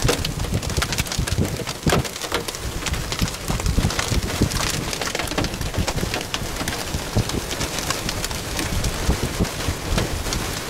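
Rain falling in a thunderstorm, with many sharp drop ticks and an uneven low rumble of gusts.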